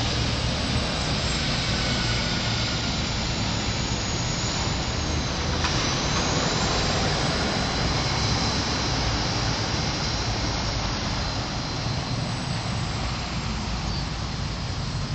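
Steady rushing roadside noise: wind buffeting the phone's microphone over the sound of traffic on the road.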